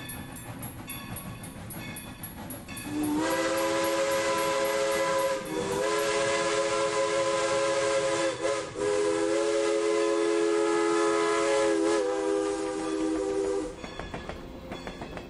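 Steam locomotive whistle blowing a chord of several notes in three long blasts, starting about three seconds in and stopping near the end. Before it comes the quieter, rhythmic clatter of a train running.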